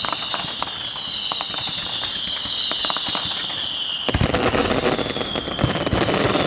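Fireworks display: a high whistle slowly falling in pitch over scattered sharp cracks, then a dense barrage of crackling bangs breaking out about four seconds in.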